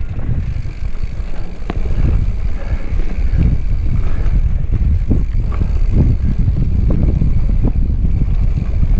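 Mountain bike rolling fast down a sandy dirt singletrack: wind rumbling across the bike-mounted action camera's microphone, with tyre noise on the dirt and scattered clicks and knocks from the bike over bumps.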